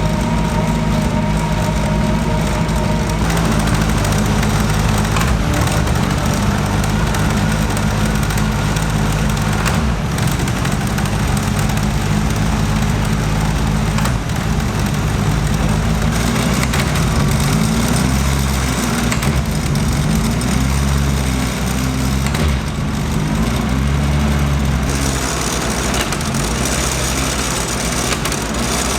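Praga R1 T race car engine running at steady low revs, without hard revving.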